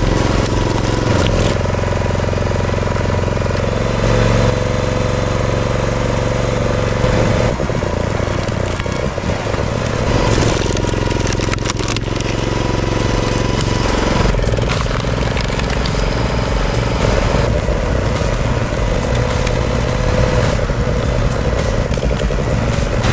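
Excavator engine running hard under load while uprooting tree stumps, with scattered knocks and cracks. The sound shifts every few seconds as one machine gives way to another.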